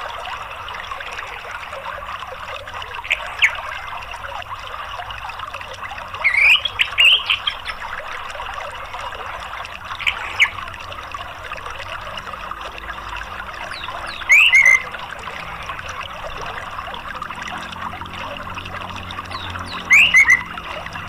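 Steady rush of flowing water with short, loud orange-headed thrush calls breaking in every few seconds: a couple of sharp notes about three seconds in, a quick run of chirps around six to seven seconds, two notes around ten seconds, and brief twittering phrases near fourteen seconds and near the end.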